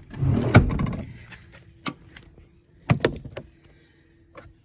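Clatter of hand work on a car's under-seat subwoofer mounting: a scraping rustle early on, then sharp knocks about two and three seconds in and a faint click near the end.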